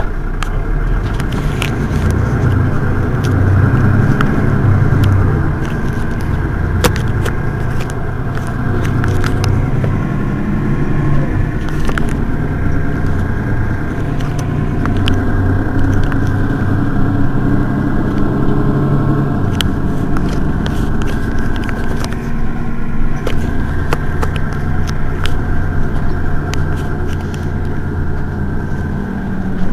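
Mercedes-Benz Citaro city bus's rear-mounted diesel engine idling while the bus stands still, a steady low running note that shifts a little now and then, with scattered small clicks over it.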